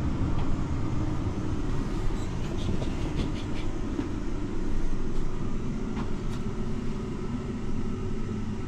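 Passenger lift cabin rising, with a steady low rumble.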